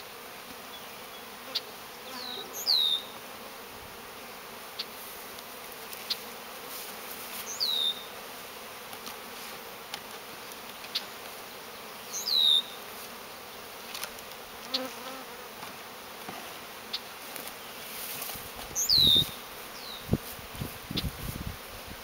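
Honeybees buzzing steadily around freshly installed nuc colonies. Four times, spaced several seconds apart, a short high whistle drops in pitch. A few low bumps come near the end.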